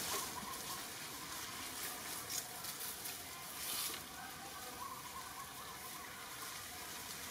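Outdoor background noise with a few brief crackling rustles, the loudest about three and a half seconds in.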